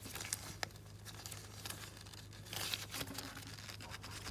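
Rubber timing belt being worked off a camshaft sprocket by hand: faint scraping and rustling with scattered small clicks, over a steady low hum.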